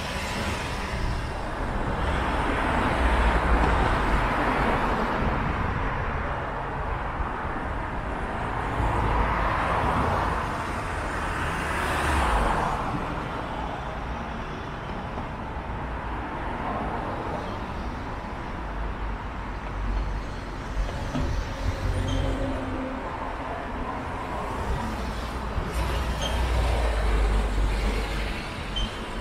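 Road traffic: several cars passing one after another, each swelling and fading, over a steady background hum of the road.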